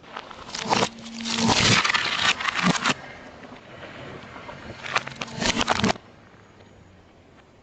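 Car tyre rolling over and crushing objects, crunching and crackling in two stretches: one from about half a second to three seconds in, a shorter one around five to six seconds.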